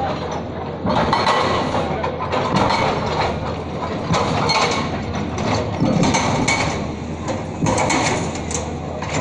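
Hydraulic breaker on a SANY excavator hammering at a concrete road surface, a dense run of mechanical knocks, with crowd chatter underneath.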